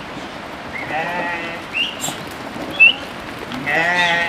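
Goats in a herd bleating: two wavering bleats, a short one about a second in and a longer, louder one near the end, with a few short high chirps between.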